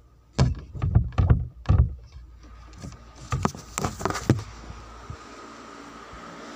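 Quick heavy footsteps thumping about two a second, then a cluster of sharper knocks and clicks.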